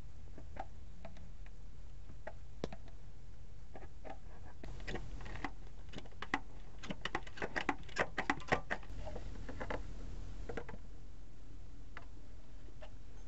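Light plastic clicks and knocks from a hand-operated oil pump and its plastic quart bottles as gear oil is pumped into a motorhome's rear differential. The clicks are scattered at first and thicken into a busy clatter in the middle.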